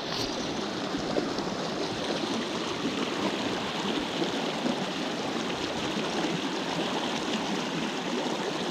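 Small freestone mountain stream running over rocks: a steady rush of flowing water.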